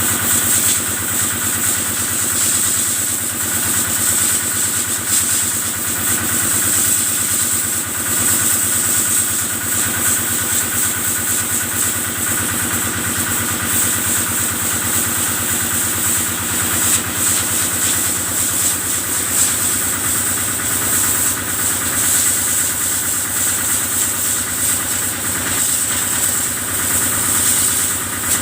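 Kubota diesel engine running steadily at a constant speed, powering the water machine used to wash cattle, over a steady high hiss of water spray.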